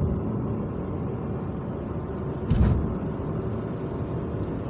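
Car engine and tyre noise heard inside the cabin while driving on a paved road: a steady low rumble, with one brief thump about two and a half seconds in.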